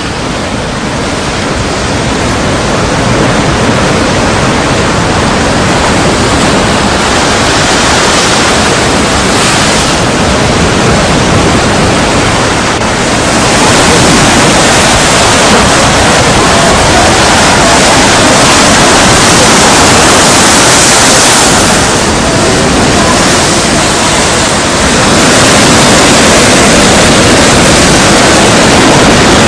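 Strong wind blowing over the sea with surf, a loud rushing noise that builds over the first few seconds and then rises and falls with the gusts.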